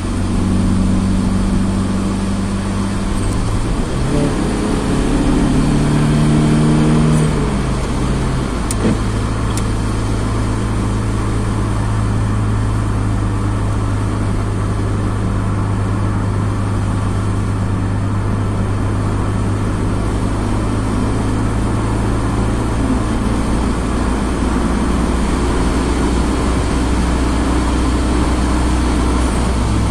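Car engine and tyre noise heard from inside the cabin, driving on a wet highway. About four to eight seconds in, the engine note climbs in steps as the car accelerates, then holds steady for the rest of the drive.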